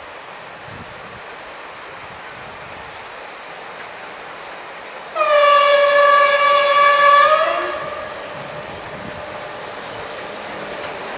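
Horn of BDZ Cargo class 07 'Ludmilla' diesel locomotive 07 061.5: one blast of about two and a half seconds, several notes sounding together, rising slightly in pitch as it cuts off, about halfway in. The approaching freight train runs faintly underneath.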